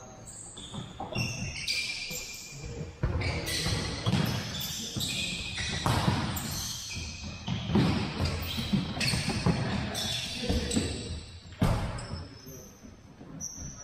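Rubber-soled shoes squeaking in short high chirps on a hardwood gym floor, with the thuds of an indoor soccer ball being kicked and bouncing, in a reverberant gym.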